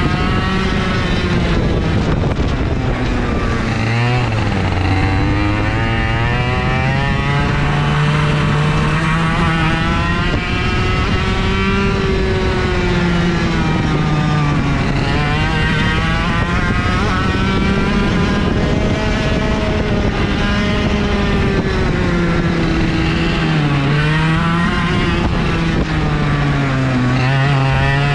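IAME KA100 100cc two-stroke kart engine running at race pace over a lap, its pitch climbing on the straights and dropping when the driver lifts for corners, most sharply about four seconds in and twice near the end.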